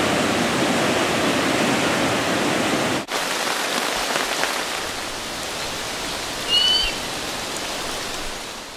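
Rushing water, a steady dense hiss that drops suddenly to a quieter rush about three seconds in. A short high chirp sounds about six and a half seconds in, and the water fades near the end.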